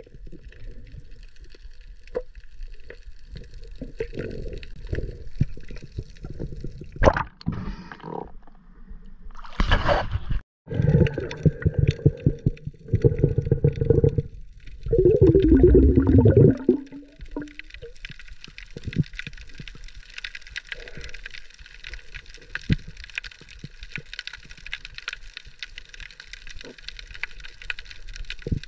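Underwater sound picked up by a camera during a night dive over a reef: scattered faint clicks and crackle, with a louder stretch of gurgling, sloshing water in the middle.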